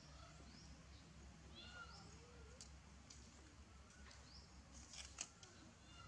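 Faint, short, high-pitched rising chirps repeating every second or so, with a few sharp clicks over a low steady rumble.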